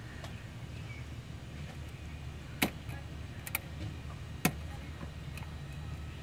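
Hands working hoses and wiring around a car's throttle body: a few sharp clicks and knocks of plastic and metal parts, about a second apart, over a steady low hum.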